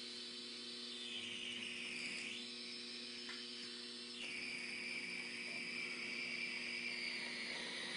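Small electric motors of N scale model locomotives running along the track: a high whine that sinks and rises in pitch a couple of times as the speed changes, over a steady low hum.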